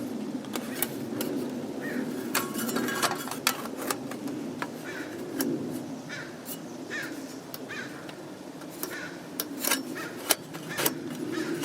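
Light metal clicks and clinks of a folding Sterno camp stove's parts and hooks being handled and fitted together, irregular throughout. A bird calls repeatedly in the background.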